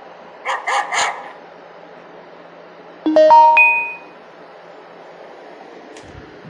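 A security camera's motion-alert sound, a recorded dog barking: three quick barks. About two seconds later comes a short, loud chime of notes stepping upward.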